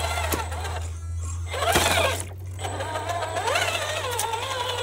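Electric motor and gearbox of a Traxxas Jeep RC crawler whining as it drives through mud, the pitch rising and falling with the throttle. A louder splash comes about two seconds in.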